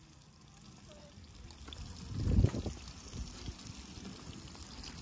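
Steel ladle stirring and sloshing the boiling broth of shrimp and squid in a cast-iron cauldron, with liquid pouring and trickling off the ladle. A brief low rumble stands out about halfway through.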